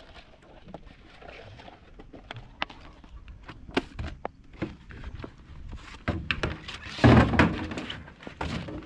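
Scattered knocks and thumps on a boat as a caught peacock bass is handled for measuring, with a louder scuffling burst about seven seconds in.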